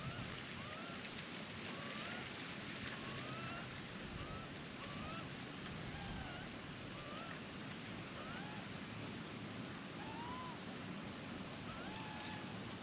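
A bird calling over and over in short, thin, rising chirps, about one a second, over a steady rushing background of wind.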